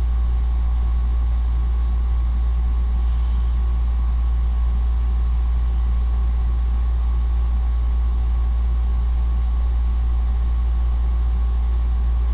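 A steady, unchanging low hum, with faint steady tones above it.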